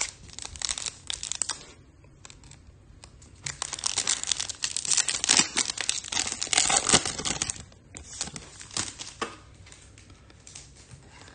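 Plastic trading-card pack wrapper crinkling and tearing as a pack is opened. The rustling comes in two spells, a short one at the start and a longer, louder one a few seconds in, then tapers off to a few light ticks.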